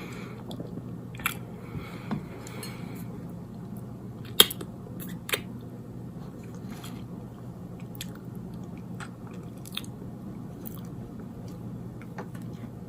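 Close-miked chewing of a soft cinnamon roll: scattered wet mouth clicks and soft squishes, with a sharp click about four and a half seconds in and another just after, over a steady low hum.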